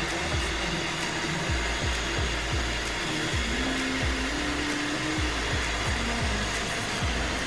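Vacuum cleaner running steadily, a constant full-range whoosh, over background music with a steady beat.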